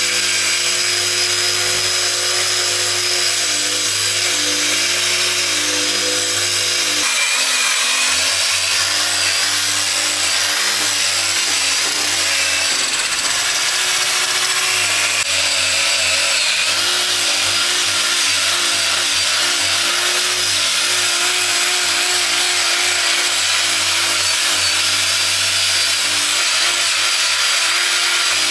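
Cordless angle grinder with a sanding disc running steadily while sanding wooden plank doors: a continuous motor whine over the sound of the disc rubbing on the wood. The whine changes pitch about seven seconds in and again about fifteen seconds in.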